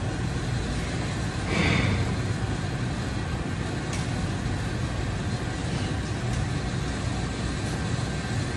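Steady vehicle rumble, swelling briefly about one and a half seconds in.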